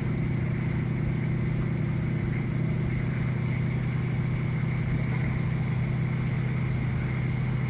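Truck engine and road noise heard from inside the cab while cruising at a steady speed: an even, low drone with no change in pitch.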